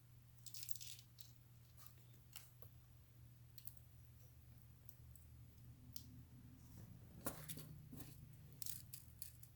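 Near silence: a steady low hum with a few faint scattered clicks and rustles of small handling.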